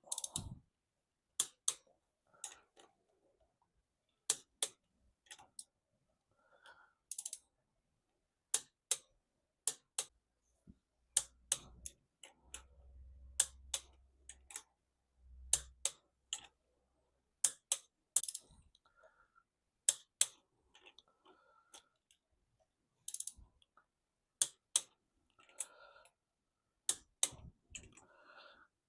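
Sharp clicks, many in close pairs, from a click-type torque wrench breaking over as the connecting-rod big-end cap nuts are tightened to about 34 lb-ft. A low rumble comes in about halfway through.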